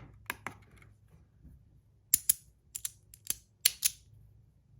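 Sharp plastic clicks, about nine, mostly in quick pairs, as small hard objects are handled: a 3D-printed magnetic slider fidget and a scale being handled for weighing.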